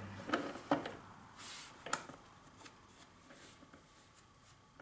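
A few light clicks and a brief rustle as the shift mechanism of a Ford M5OD-R1 five-speed manual transmission is worked by a gloved hand, moving it between gears. The clicks fall in the first two seconds, followed by a faint scrape.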